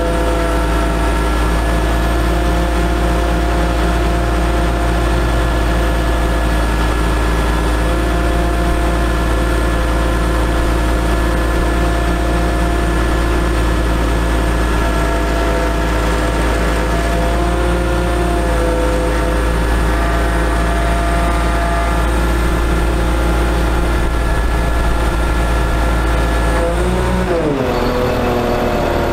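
Caterpillar C7 diesel engine of a bucket truck running steadily at raised speed, powering the aerial's hydraulics while the boom moves. Near the end its pitch falls sharply as the engine drops back.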